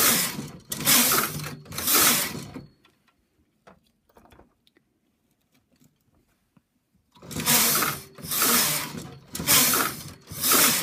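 Knitting machine carriage being pushed back and forth across the needle bed, each pass a clattering swish lasting under a second: a few passes, a pause of about four seconds with a few light clicks of needles being handled, then four more passes about a second apart.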